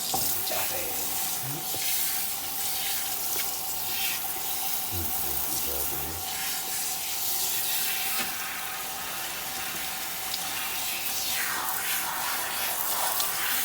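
Handheld bath sprayer running steadily, its water spraying onto a dog in the tub as the soap is rinsed out, a steady hiss with a faint steady tone beneath it.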